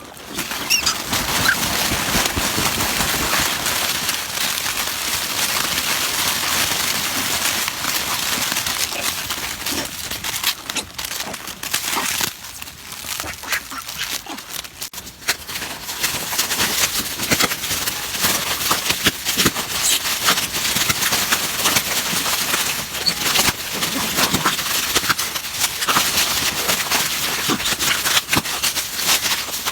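A group of monkeys calling, a dense clamour of many short, high calls overlapping one another.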